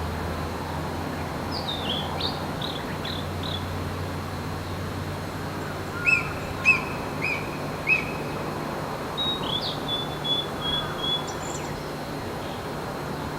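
Small birds chirping: scattered short, falling chirps, a few louder ones about halfway through, then a quick run of repeated notes, over a steady low hum.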